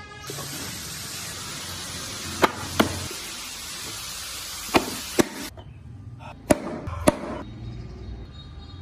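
Sharp clicks in three pairs over a steady hiss that cuts off sharply about halfway through: the hinged doors of a hand-carved wooden model car being opened and shut.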